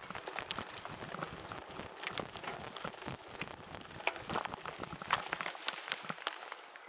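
Mountain bike rolling fast down a dirt singletrack through grass and dry leaves: a dense, irregular crackle and ticking of tyres on leaves and twigs and the bike jolting, with a few sharper clicks in the second half.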